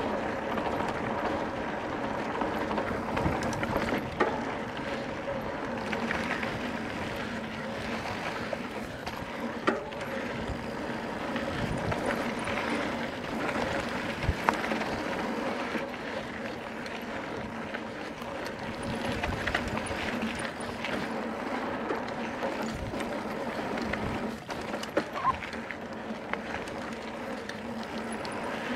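Mountain bike ridden down a dirt singletrack trail: steady rumble of tyres and rattle of the bike, with an even hum throughout and a few sharp knocks as it hits bumps.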